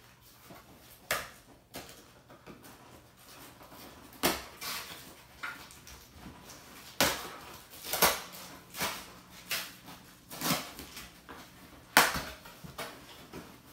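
Hard bed-frame legs and parts being handled and set down: about a dozen irregular clacks and knocks, the loudest near the end.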